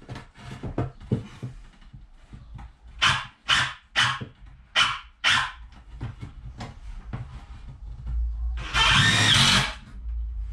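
Cordless drill driving screws into the softwood door frame: short sharp bursts a few seconds in, then one longer run of about a second and a half near the end as a screw goes in.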